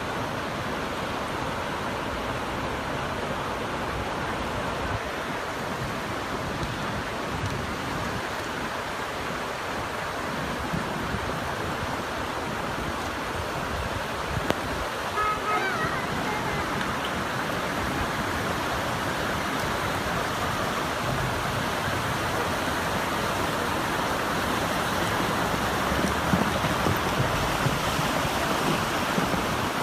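Fast-flowing floodwater rushing, a steady dense noise of water that grows a little louder in the second half.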